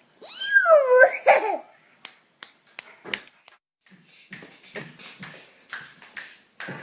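A baby squeals loudly with a high, gliding pitch for about a second and a half, then laughs in short breathy bursts, two or three a second.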